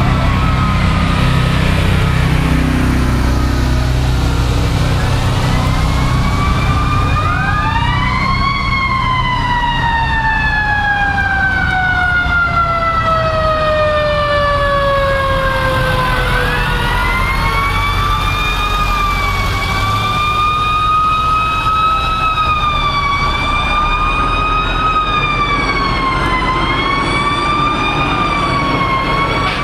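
Fire trucks driving past with sirens. One siren winds up about eight seconds in and then falls slowly in pitch for several seconds. From about twenty seconds a siren wails up and down over and over, above the steady rumble of the trucks' engines.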